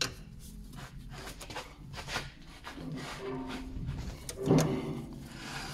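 Water-pump pliers clicking and scraping on a car's steering tie rod as they are fitted and worked to unscrew it. There are several short metallic clicks, and a louder thump about four and a half seconds in.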